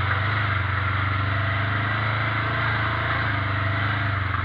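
ATV engine running at a steady, unchanging speed as the quad rides the trail.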